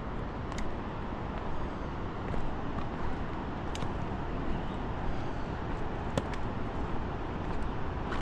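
Steady low rumbling noise of wind and handling on a phone microphone while walking down stone steps, with a few sharp clicks.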